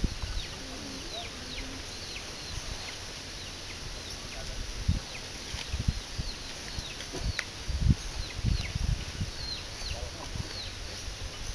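Birds chirping: a string of short, high, falling chirps, about one or two a second. Several low thumps in the second half.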